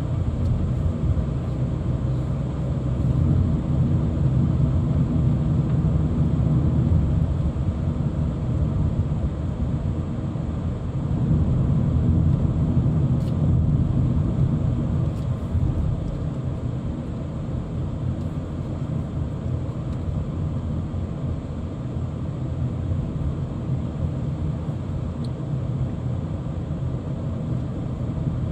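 Steady low rumble of a car driving, engine and road noise, swelling a little louder a couple of times.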